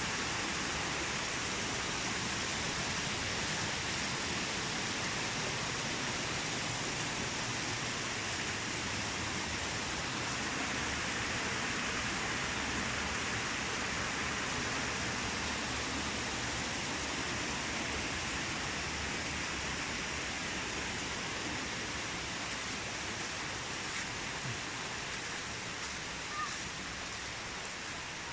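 Steady rushing of a mountain stream, an even hiss of running water that eases slightly near the end.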